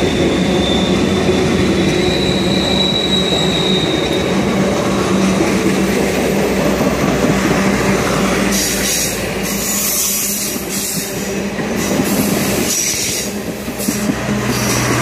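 Passenger cars of an excursion train rolling past on a curve: a steady rumble of wheels on rail, with a thin high wheel squeal in the first few seconds.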